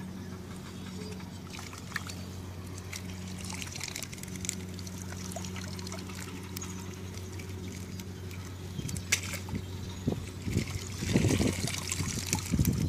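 Water pouring and dripping from a mesh fishing landing net as it is lifted out of a pond, growing louder and more irregular over the last few seconds. Before that there is only a steady low hum with a few faint ticks.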